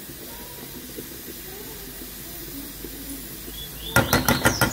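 A faint steady hiss, then near the end a quick series of sharp knocks, about five a second: a spoon tapping a lump of margarine off against a metal cooking pot.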